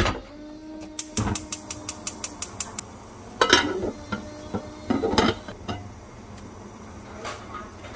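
A pot is set down on a gas hob's grate with a knock. Then the hob's igniter clicks rapidly, about five clicks a second for nearly two seconds, as the burner is lit. A glass pot lid clatters twice, set onto the pot and lifted again.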